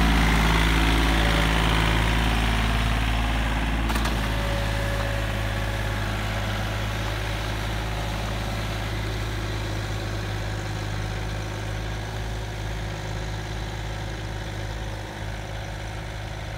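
John Deere 3036E tractor's three-cylinder diesel engine running steadily under load, pulling a three-bottom disc plough through the soil. It grows gradually fainter as the tractor moves away.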